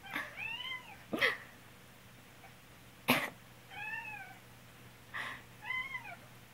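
A cat meowing three times in answer to a person with a cold coughing: short coughs alternate with the meows, and each meow rises and then falls in pitch.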